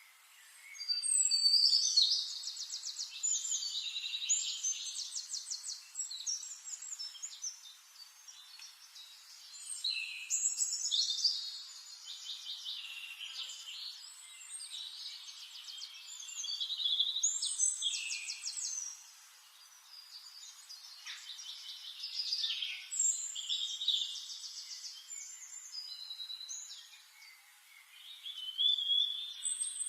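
Songbirds singing in a forest: high-pitched phrases of rapid trills and chirps, one every five or six seconds, with short lulls between.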